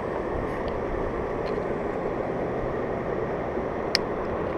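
Steady rushing noise, with one sharp click about four seconds in from a plastic fish lip grip snapping shut on a small bass's jaw.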